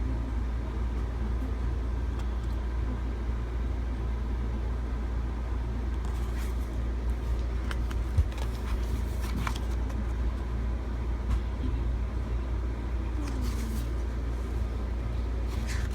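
Steady low hum or rumble, with faint clicks and crinkles of an album's packaging being handled, most of them in the middle of the stretch and a few near the end.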